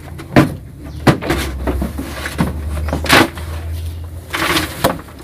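A series of sharp knocks against a feed trough as leafy silage is tipped out of a plastic tub and goats crowd in at the trough, with a brief rustle of the leaves pouring out near the end.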